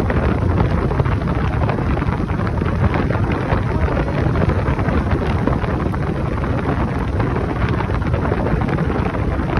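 Steady wind noise buffeting the microphone of a motorcycle being ridden at speed, with the engine running underneath.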